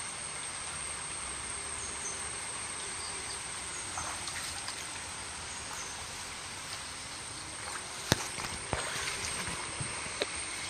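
Steady rush of muddy floodwater flowing, with a constant high whine over it. A few sharp knocks come near the end.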